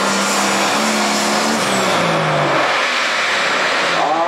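Pulling vehicle's engine running hard at full throttle down the track: a loud, dense exhaust noise whose pitch drops about two and a half seconds in.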